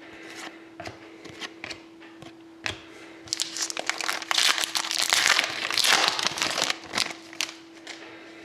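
A trading-card pack wrapper crinkling as it is torn open and handled, with a dense stretch of crinkling in the middle few seconds between light clicks and taps of card handling.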